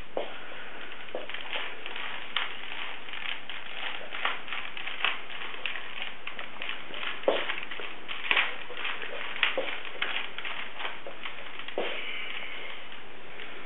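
Rubik's cube being turned fast by hand: irregular plastic clicks and clacks of the layers turning, a few sharper ones in the second half, over a steady hiss.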